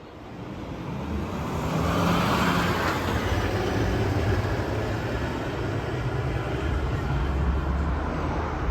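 Concrete mixer truck driving past: its engine and road noise swell up over the first couple of seconds and stay loud.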